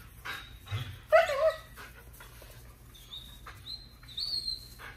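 German Shepherd whining and whimpering, with a louder cry about a second in, then a thin high-pitched whine that rises slightly over the last two seconds.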